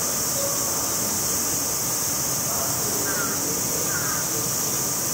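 Steady, loud cicada chorus, a high even buzz that does not change, with two faint short chirps near the end.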